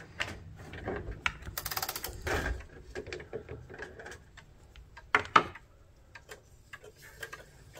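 Wall-hung pendulum clock's movement being worked by hand at the dial: small mechanical clicks with a quick run of ratcheting about a second and a half in, then two sharper clacks about five seconds in, as the clock is tried to see whether it will run.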